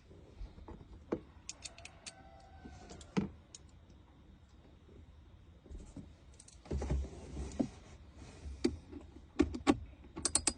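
Scattered clicks and knocks of hands and tools working to remove a car's air-conditioning blower fan, with a busier patch of knocks about seven seconds in and quick runs of sharp clicks near the end.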